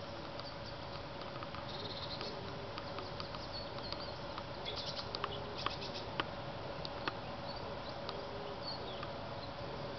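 Outdoor pond-side ambience: a steady faint hum under scattered short, high chirps and clicks from small animals.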